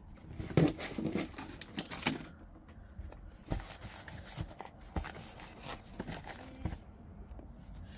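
Packaging rustling and crinkling as a packet of nail remover wipes and a small cardboard box are handled, loudest in the first two seconds, followed by a few soft taps and knocks of items on the table.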